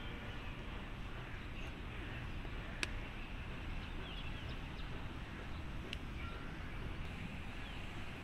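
Steady outdoor background noise with two sharp knocks of a hard cricket ball being struck in the practice nets, about three seconds apart, the second fainter. Faint bird chirps between them.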